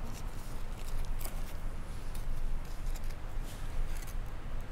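Curtain fabric swatches in a sample catalogue being handled and turned over, giving scattered soft rustles and light clicks, over a steady low hum.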